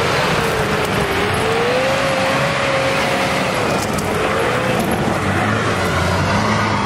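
Off-road 4x4's engine working hard under load: a steady low drone with a wavering whine that rises and falls over it, and a constant hiss on top.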